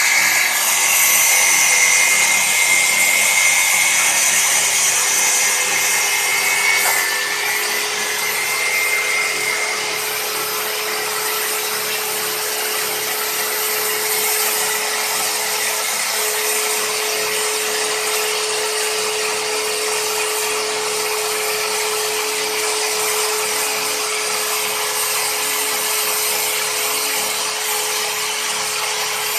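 Angle grinder with a cutting disc running steadily over a steady motor whine as it cuts into a metal vise. A harsh high grinding is strongest over the first seven seconds or so and eases to a steadier, lighter cutting sound by about ten seconds in.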